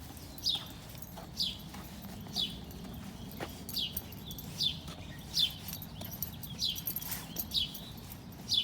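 A bird repeating a short, high chirp that falls in pitch, about once a second, with a few faint knocks.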